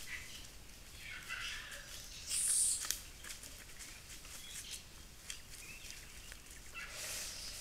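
Forest ambience with scattered animal chirps and the crackle of dry leaf litter under stump-tailed macaques' footsteps, with a short high hiss about two and a half seconds in.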